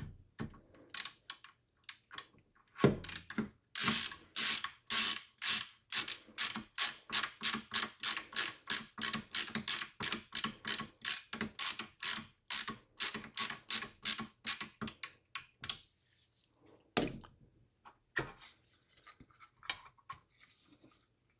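Ratcheting screwdriver clicking in a steady run, about three clicks a second, as screws are driven into a mini PC's bottom cover. The clicking stops about three-quarters of the way through, followed by a few scattered handling knocks.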